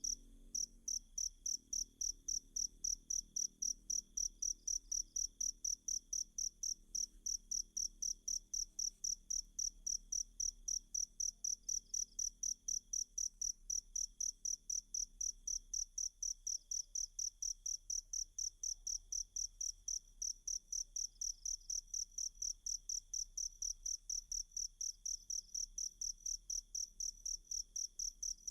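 Cricket chirping in a fast, even rhythm of high-pitched pulses, a recorded song-tutor track. It starts abruptly and holds steady throughout.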